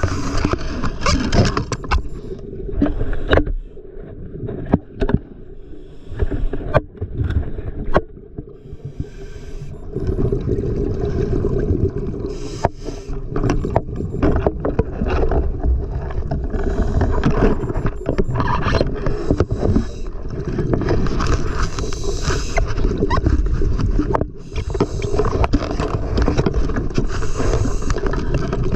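Muffled rushing water and bubbling with scattered sharp clicks and knocks, as picked up by a diver's camera in its underwater housing. The first third is quieter, with the clicks standing out, before a denser rushing noise swells and falls.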